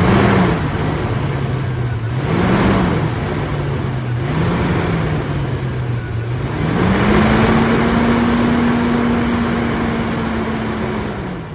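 Suzuki Grand Vitara XL-7's H27A 2.7-litre V6 revved from idle in three short blips, then held at higher revs for about four seconds before it drops back. A loud howl rises with the revs, which the owner suspects comes from the fan clutch or the cooling fan.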